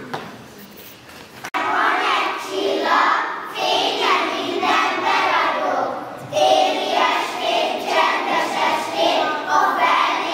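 A large children's choir singing together, coming in after a brief lull about a second and a half in.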